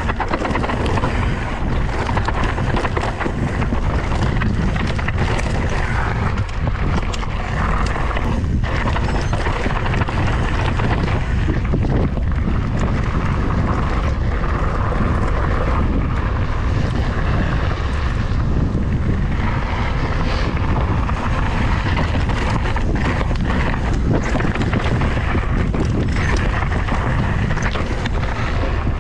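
Wind rushing over the microphone of a mountain bike riding fast down a dry dirt trail, with the tyres running over loose dirt and the bike rattling over the bumps in scattered clicks.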